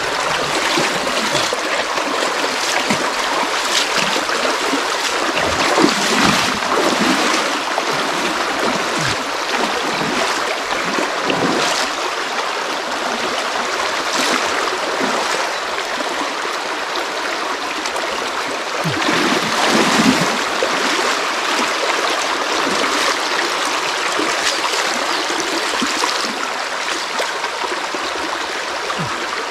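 Creek water rushing over rocks, a steady even noise, with a couple of brief louder moments about six and twenty seconds in.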